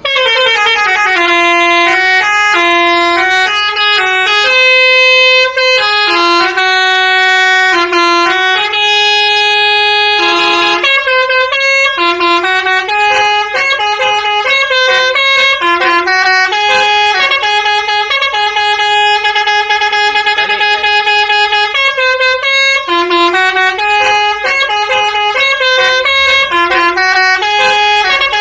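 Bus telolet horn, a Basuri multi-tone musical air horn, playing a tune. It is a run of loud horn notes that switch between a few pitches every half second or so, starting abruptly.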